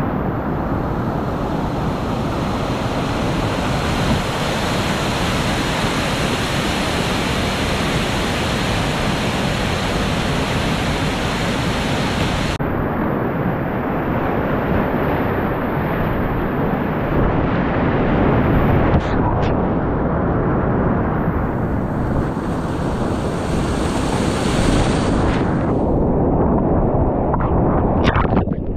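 Whitewater river rapids rushing loudly and steadily, heard close up from the river. Near the end, water splashes over the microphone as the kayak drops through a rapid.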